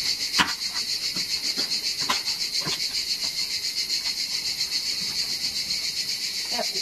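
Insects chirring in a steady, high, fast-pulsing chorus. A few sharp light clicks come from the plastic spray-mop head and pad being handled, about half a second, two seconds and nearly three seconds in.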